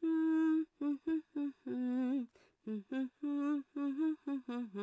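A woman humming a pop song tune, a string of short held notes.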